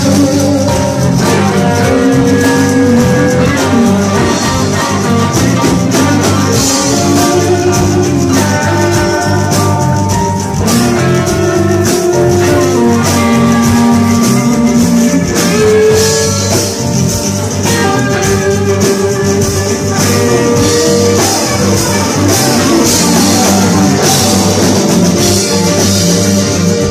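Live rock band playing loudly, electric guitar to the fore over bass and drums.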